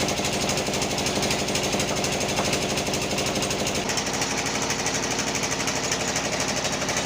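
Band sawmill running with a steady, rapid pulsing beat.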